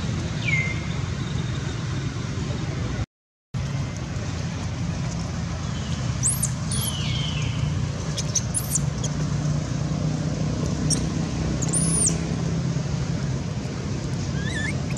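Baby macaque giving several short, high-pitched squealing cries, one near the start and a cluster in the middle, over a steady low rumble of road traffic.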